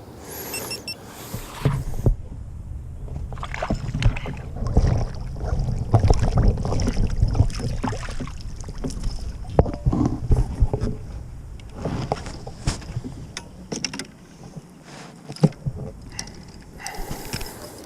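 Irregular knocks, bumps and low rumbling handling noise in a fishing kayak while a small largemouth bass is brought in and landed.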